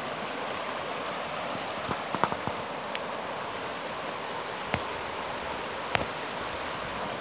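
River water rushing steadily over shallow rapids and stones, with a few short sharp clicks scattered through it.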